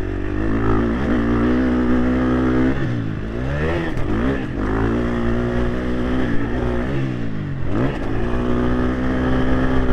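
Motocross bike engine ridden around a track, picked up by a helmet-mounted microphone. It runs at a steady pitch, then drops and climbs back up as the throttle is rolled off and on: about 3 s in, again near 4 s, and near 7.5 s.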